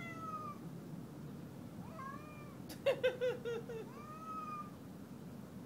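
Cat meowing: long drawn-out meows near the start, about two seconds in and about four seconds in, with a rougher, choppy yowl in between.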